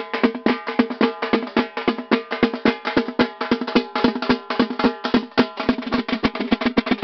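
Rapid, steady drumming, several strokes a second, over a held pitched drone tone: percussion music of the kind that accompanies a processional ritual bull.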